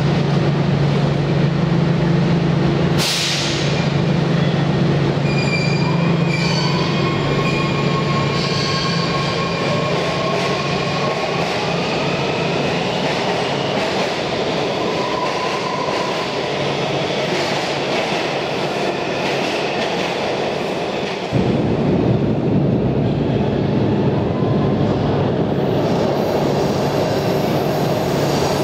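WMATA Metrorail subway train pulling out of an underground station: a steady low hum, a short hiss about three seconds in, then a whine that rises slowly in pitch as the train speeds up, over the rumble of wheels on rail. About two-thirds of the way through the sound changes abruptly to a louder, steady rail rumble.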